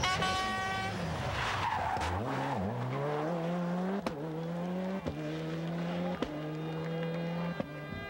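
Rally car's two-litre turbocharged four-cylinder engine: a high note falling away at the start, a rush of tyre noise about two seconds in, then the engine pulling through the gears, its pitch climbing and dropping back at each of four quick changes, each change marked by a short crack.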